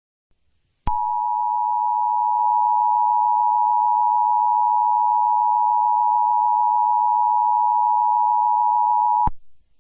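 Emergency Alert System attention signal: a steady two-note tone that starts abruptly about a second in and cuts off sharply some eight seconds later.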